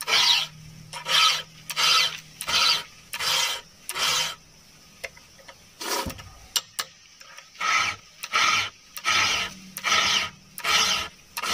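A round chainsaw file rasping across a steel saw-chain cutter in repeated push strokes, about one stroke every two-thirds of a second. Near the middle the strokes stop for about three seconds, broken by a single knock, then resume at the same pace.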